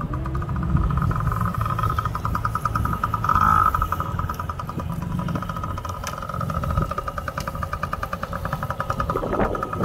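Small mini dirt bike engines, a Yamaha and a Honda CRF50, running as the bikes ride, with a steady buzzing note that swells briefly about three and a half seconds in.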